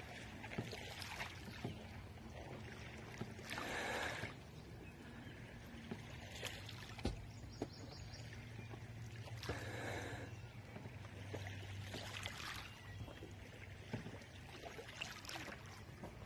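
Kayak paddle blades dipping into and pulling through calm lake water, a faint soft swish every few seconds.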